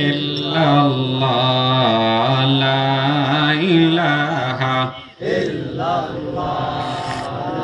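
A man's voice chanting zikr in long, drawn-out melodic phrases into a microphone over a loudspeaker, with a short breath pause about five seconds in.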